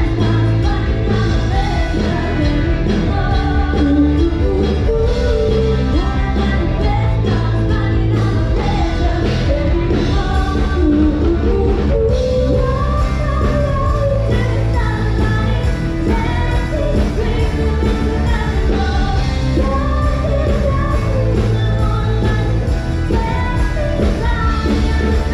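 Live band playing a rock-and-roll-style pop song, with drums and bass keeping a steady beat under a singing voice that carries the melody.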